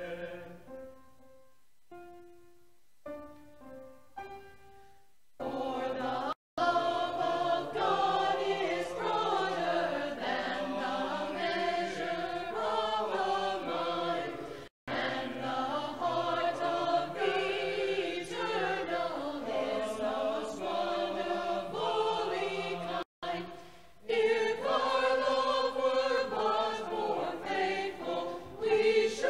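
Mixed choir of men's and women's voices singing together. It opens quietly with a few soft held notes, then the full choir comes in about five seconds in, and the sound drops out for an instant three times.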